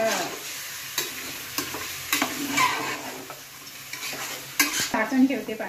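A metal spoon stirring pieces of raw country chicken in an aluminium pot, with a run of sharp clinks and scrapes of the spoon against the pot, the loudest near the end.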